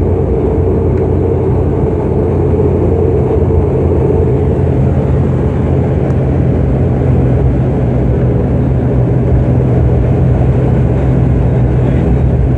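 Steady drone of a turboprop airliner's engines and propellers, heard inside the cabin as the plane rolls along the runway after landing.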